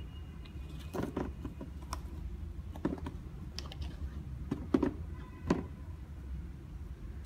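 Adidas NMD sneakers being handled and set down on a cardboard shoebox: about eight light, irregular knocks and taps, bunched about a second in and again near the end, over a steady low hum.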